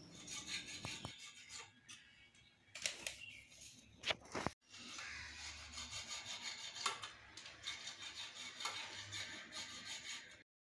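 Faint rubbing and scraping as kitchen chimney parts, including the blower wheel, are handled, with a few sharp knocks about three and four seconds in.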